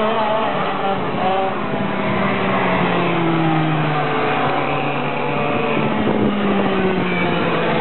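Several two-stroke racing kart engines running on the track, their pitches rising and falling and overlapping as the karts accelerate and lift off through the corners.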